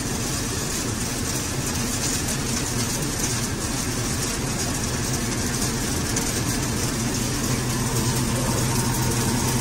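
Tractor-driven multicrop thresher running steadily: a continuous mechanical churning over the hum of the Swaraj tractor's diesel engine, with the hum growing a little stronger near the end.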